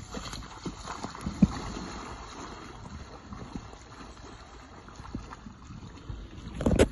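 Shallow river water lapping and sloshing, with a few soft knocks and a burst of wind rumbling on the microphone near the end.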